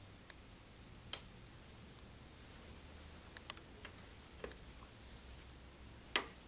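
Quiet room tone broken by several faint, sharp clicks and taps as a stethoscope chestpiece is moved and placed over a shirted back; the loudest tap comes near the end.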